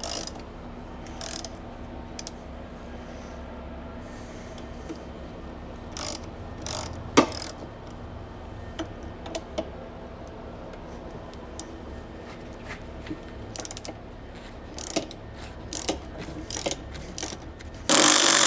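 Hand socket ratchet clicking in short irregular runs while backing out the end cap bolts of a meter housing, with a louder burst of noise about a second and a half long near the end.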